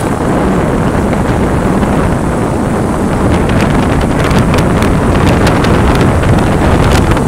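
Loud, steady wind buffeting the microphone on a moving motorbike, mixed with the bike's engine and road noise, with scattered crackles in the second half.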